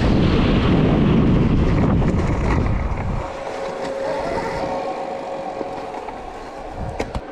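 Stark VARG electric dirt bike ridden and then slowing: loud wind and tyre rush that falls away about three seconds in, leaving a faint steady electric-motor whine. A couple of sharp clicks near the end.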